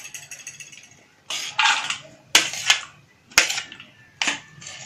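A spoon scraping and tapping chopped onion off a plate into a stainless-steel bowl: a string of sharp clicks and scrapes, roughly one or two a second.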